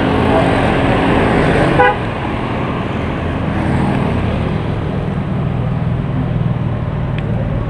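Road traffic running close by, a motor vehicle's engine droning steadily, with a short horn toot just under two seconds in.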